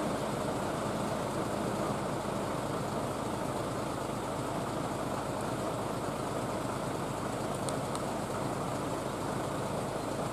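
Heavy diesel tractor-truck engines idling steadily, with rain falling.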